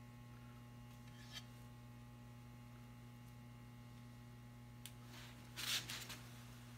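Steady low electrical hum, with a faint tick about a second in and a short rustling clatter near the end.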